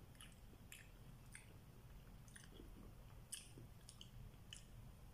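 A person chewing bread, faint and close: a string of irregular soft, wet mouth clicks and smacks over a low steady hum.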